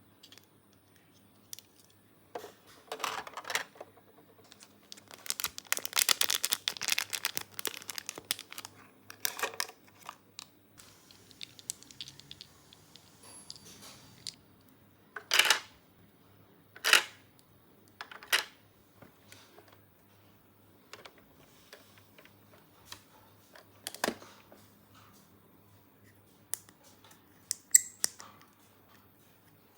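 Small plastic toy pieces and their packaging being handled: scattered clicks and taps, with longer rustling stretches, the loudest about five to nine seconds in.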